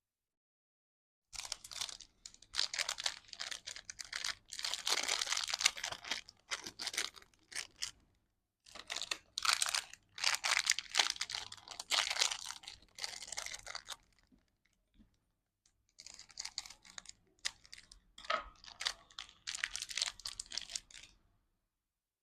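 Candy wrappers being torn open and crinkled by hand, in three spells of crackly rustling with short pauses between them.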